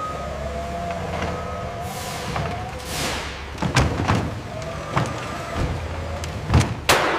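Factory machinery running: a steady low hum with repeated sharp metallic knocks and hisses of air, the loudest knocks in the second half.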